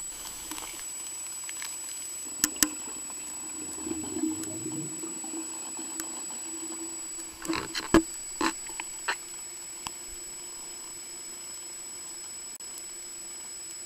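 Muffled underwater sound heard through an action camera's waterproof housing: a steady low hum and a thin high whine, with a few sharp clicks and knocks about two and a half seconds in and again around eight seconds in, and a brief low rumble about four seconds in.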